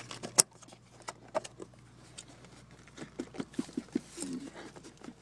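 Small plastic clicks and rustling from a car door's wiring-harness connector being unlatched and pulled apart by hand, with one sharp click about half a second in and a busier run of little clicks near the end.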